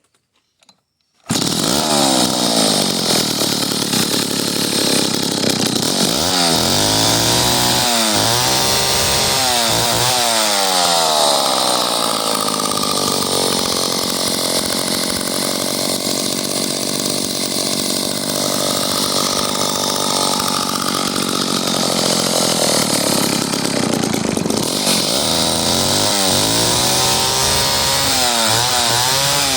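Vintage McCulloch 1-52 two-stroke chainsaw starting suddenly about a second in, then running loud. It is revved up and down several times, settles into steady running, and is revved in quick bursts again near the end.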